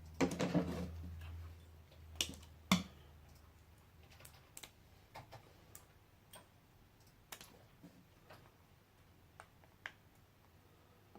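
A short scraping rustle, then two knocks and a run of sparse, light clicks and taps from a laptop battery pack's plastic casing and 18650 cells being handled and pried apart.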